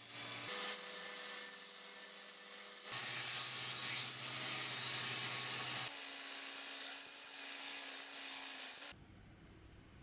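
Belt sanding machine running with a steel knife blade pressed against the abrasive belt, grinding to correct the blade's shape and cutting edge: a steady grinding hiss over the motor's hum. The sound changes abruptly every few seconds and falls away sharply near the end.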